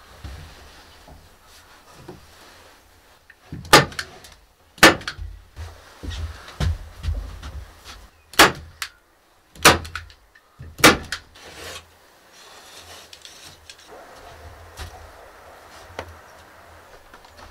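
Five sharp knocks, two close together about four seconds in and three more about a second apart a few seconds later, while mineral wool insulation is being fixed into a log wall's stud framing; softer handling noise in between.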